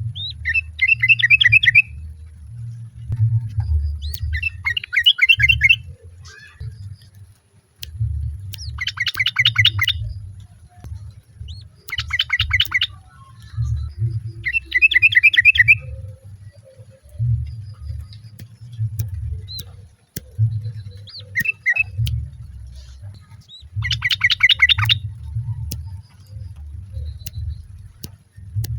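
Yellow-vented bulbul giving repeated bubbly, chattering song phrases, about seven bursts of one to two seconds each with short gaps between, over a low rumbling noise.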